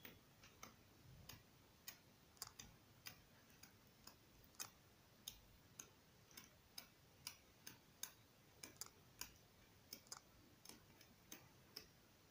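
Pages of a paperback colouring book flicking off the thumb one after another as it is leafed through: faint, quick ticks at an uneven pace of about two a second.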